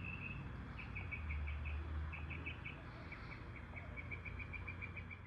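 A small bird chirping in short repeated notes, in groups of three or four, then a quicker run of chirps in the second half, over a low steady hum.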